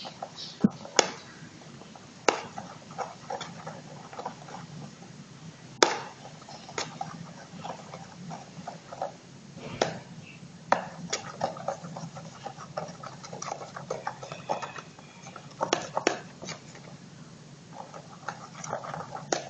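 Slime mixture being stirred in a bowl: irregular sharp clicks and taps of the utensil against the bowl, with smaller soft ticks between, over a low steady hum. The slime is still being worked with salt water and has not yet set.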